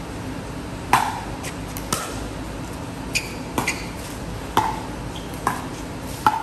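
Pickleball rally: the sharp pock of paddles striking the hollow plastic ball, with bounces on the concrete court, about seven hits at uneven spacing over a steady background hum.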